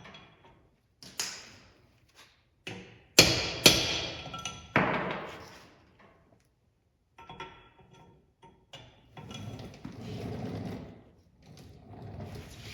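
Metal knocks and clanks from tools on a Dana 70 axle being taken apart: a few sharp ringing strikes about three to five seconds in, lighter clicks before, and scraping and handling noise later.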